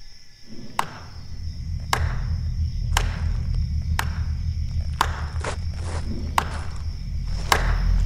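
Tense film score: a low droning bass that comes in about half a second in and slowly builds, with a sharp percussive click about once a second.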